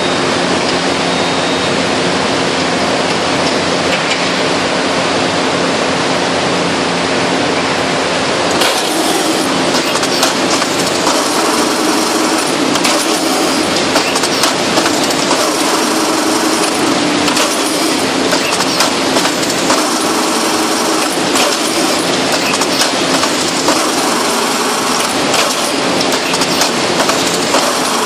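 International Baler TR12-T100 two-ram hydraulic baler running with a loud, steady drone and hum. About eight seconds in, irregular clanking and ticking start as the bale is pushed out and wire-tied.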